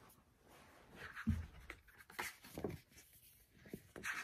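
Faint rustling and handling of a paperback picture book as its cover is opened and pages are turned, with a soft thump about a second in.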